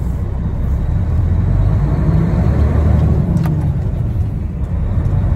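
Tipper truck's diesel engine running, heard from inside the cab: a steady low drone that rises a little in the middle and then eases back.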